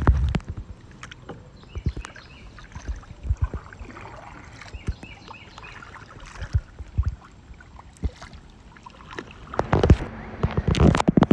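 Kayak paddle strokes on flat water: irregular splashes and drips, with light clicks and knocks from the paddle and kayak. The strokes get louder near the end.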